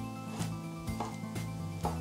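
Background music with held notes, over a chef's knife chopping pitted dates on a wooden board: a few sharp taps of the blade, roughly half a second apart.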